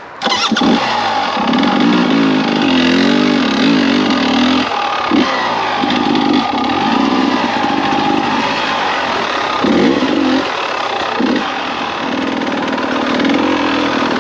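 Beta 300RR single-cylinder two-stroke enduro engine, geared short with 12/50 sprockets, pulling the bike over rough trail. The revs rise and fall with the throttle and drop away briefly a few times as the throttle is rolled off.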